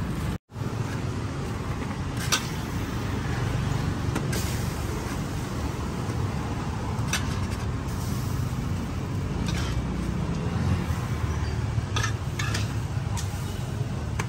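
A steady low rumble, with a metal spatula scraping and clinking against a steel wok a few times as stir-fried octopus is scooped out. The sound cuts out completely for a moment just after the start.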